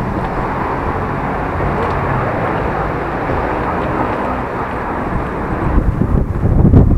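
Steady outdoor city street noise, with wind starting to buffet the microphone in low, irregular gusts near the end.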